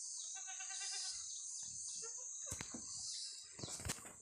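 A steady high insect drone runs through, with a goat kid's short bleat about half a second in. Two sharp knocks come later, the second near the end.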